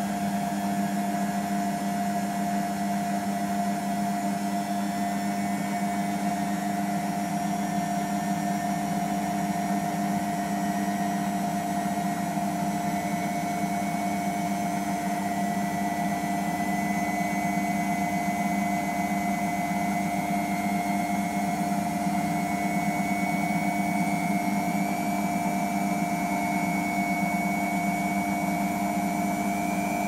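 Beko WMP511 front-loading washing machine running in its second rinse-and-spin stage: a steady motor hum with a faint high whine that slowly rises in pitch.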